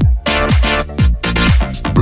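Upbeat electronic dance music with a heavy kick drum, about three beats a second.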